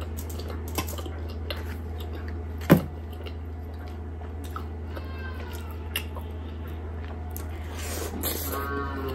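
Close-miked eating of mutton curry off the bone: wet chewing, lip smacks and sucking clicks, with one sharp knock about two and a half seconds in. Two short, high, falling calls come through, one about five seconds in and one near the end.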